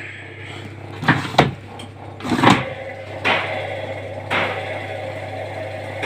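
Indesit washing machine's brushed drum motor starting up in jerks: several uneven surges in the first few seconds, then running more steadily over a low steady hum. The pulsing is the fault the repairman traces to sparking, worn motor brushes.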